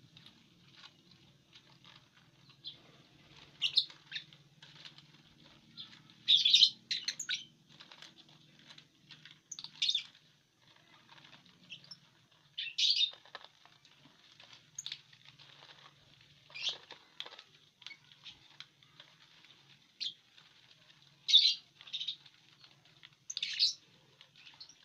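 Fischer's lovebirds giving short shrill chirps every few seconds, the loudest about a quarter of the way in and again near the end, over the crackling rustle of dry corn husk being torn up for nesting material.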